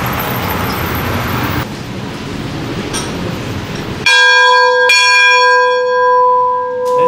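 A large brass locomotive bell hung in a cast-iron yoke is struck twice, under a second apart, and then rings on with a long, steady ring of several clear tones.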